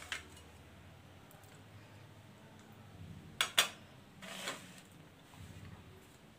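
A marinated chicken breast goes into a plastic tub of seasoned flour for coating. There are two sharp taps about three and a half seconds in, then a soft scuffing as a hand presses flour onto the chicken.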